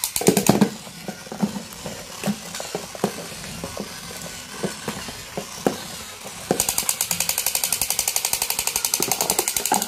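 Battery-powered crawling toy soldier: its electronic machine-gun sound effect, a fast even rattle of about nine shots a second, plays at the start and again for the last three seconds or so. In between, scattered single knocks sound as it crawls along the floor.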